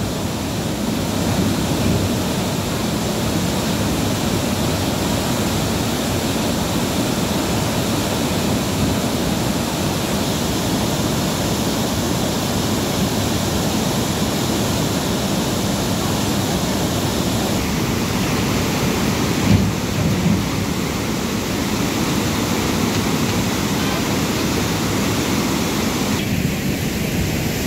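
Teesta River in flood, swollen by heavy rain, pouring through the sluice gates of a barrage: a steady loud roar of churning water.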